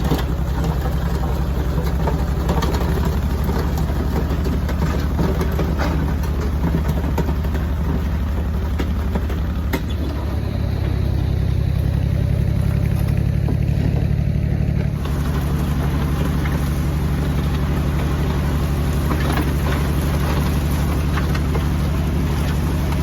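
Tractor engine running steadily as it pulls a box blade over a dirt and shale road, its note shifting about ten seconds in and again about five seconds later.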